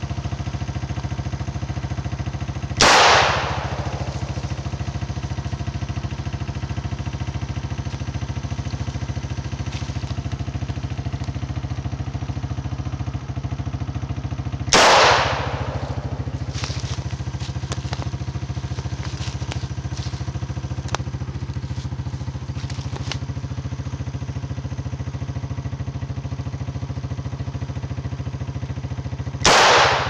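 Three revolver shots, about twelve seconds apart, each a sharp crack with a short echo, over the steady idle of an ATV engine.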